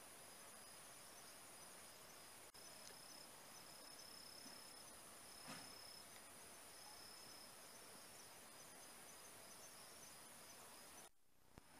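Faint insects singing in undergrowth: a steady high-pitched tone with a lower chirping line that comes and goes, over quiet outdoor background noise. A short soft sound comes about halfway, and the sound drops out briefly near the end.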